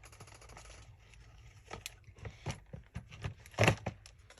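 Rummaging through craft supplies: light scattered clicks and taps of paper and small items being handled, with one sharper knock about three and a half seconds in.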